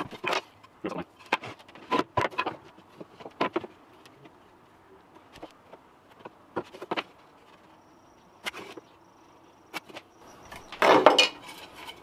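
Short knocks and clatters of cut pallet-wood pieces and a metal speed square being handled and set down on a workbench, with a louder scraping rub of wood near the end.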